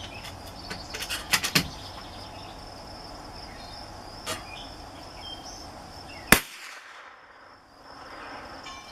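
A single shot from a Savage Mark II .22 LR bolt-action rifle firing Remington Golden Bullet bulk ammunition, a sharp crack about two thirds of the way through. A few light clicks come about a second in, over a steady high chirring of insects.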